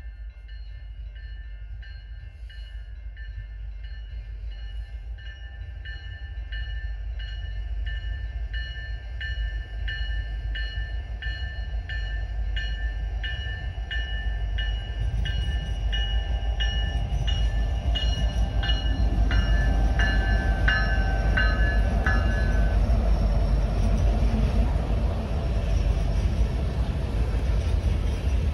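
General Signals type 2 electronic crossing bell dinging a little over once a second, a bell the uploader calls slightly sick; it stops about 22 seconds in. Under it the low rumble of a BNSF empty coal train's diesel locomotives grows louder, and the empty coal hopper cars roll past over the crossing near the end.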